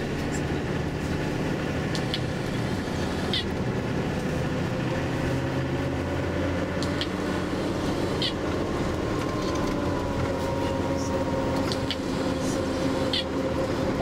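Tour bus engine and drivetrain running steadily under way, heard from inside the cabin, with a drawn-out whine that rises slightly and then holds. A few brief high-pitched squeaks or ticks come through now and then.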